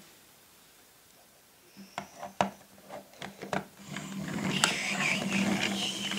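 Plastic toy campervan being handled and pushed across a wooden tabletop. A few light clicks and knocks come about two seconds in. From about four seconds in, its plastic wheels roll with a steady grinding rumble.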